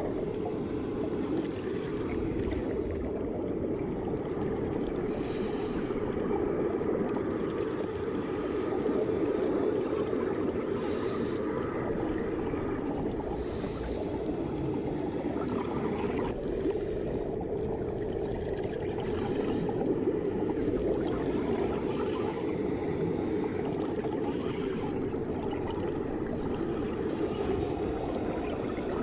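Underwater ambience in a swimming pool: a steady, muffled rushing of water, with a faint high hiss that recurs every second or two.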